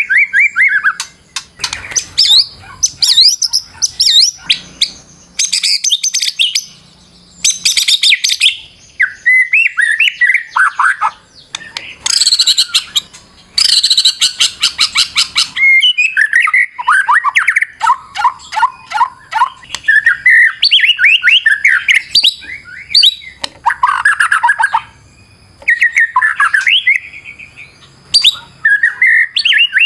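White-rumped shama (murai batu) singing a loud, fast and highly varied song. Short whistled phrases, trills and falling notes are broken by brief pauses, and a harsh rattling stretch comes about halfway through. This is the aggressive 'fighter' song with many variations that keepers play as a bait call to provoke other shamas into singing.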